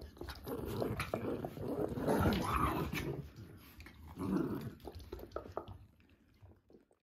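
Jack Russell terrier whining and grumbling in two bouts, one from about half a second to three seconds in and a shorter one around four seconds, then dying away.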